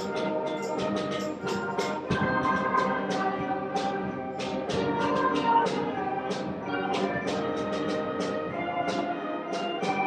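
School concert band playing a full arrangement: wind instruments hold pitched chords under a steady run of struck percussion notes that ring briefly.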